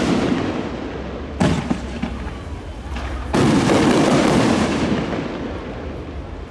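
Fireworks shells bursting: two sudden loud bangs, about a second and a half and three seconds in, each followed by a rumbling, crackling tail that slowly fades.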